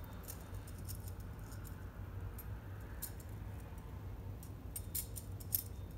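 Faint, scattered light metallic clinks of treble hooks, split rings and a prop blade knocking together on a handmade wooden topwater musky lure as it is turned over in the hands, with a cluster near the end. A low steady hum sits underneath.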